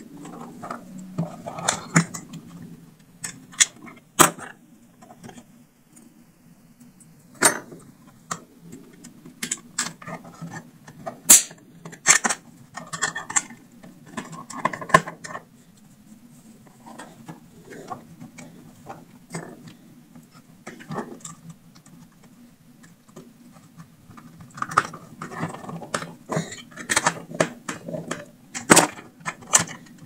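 Irregular clicks, taps and light knocks of small plastic parts, a speaker driver and wires being handled on a workbench, most of them in the first half and the last few seconds, over a steady low hum.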